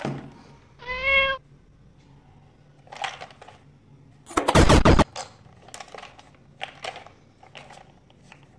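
A battery-powered plastic toy train being handled. The toy gives a short electronic tone about a second in. About halfway there is a loud rattle lasting about half a second, followed by scattered plastic clicks and knocks as the toy is turned over in the hands.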